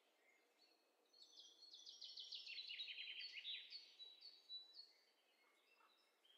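Quiet birdsong sound effect: birds chirping, a quick run of rapid high chirps and trills starting about a second in, thinning to a few scattered notes near the end.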